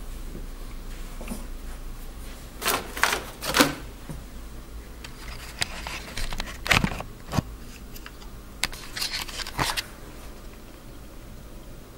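Handling noise: short sharp clicks, taps and scrapes in two clusters, about three seconds in and again from about five to ten seconds in, over a low steady hum.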